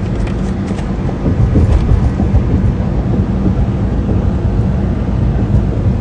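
Steady low rumble of a moving car heard from inside the cabin: engine and tyre noise on the road, with a faint steady hum.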